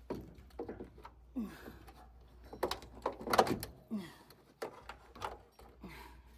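Knocks and clatter of a cam-lock hose coupling being worked onto a water pump's fitting, in irregular sharp clanks that are loudest about three and a half seconds in; the coupling is not seating easily.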